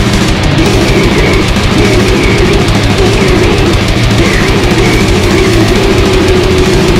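Old-school death metal: heavily distorted guitars and a drum kit playing a dense, continuous riff at steady loudness.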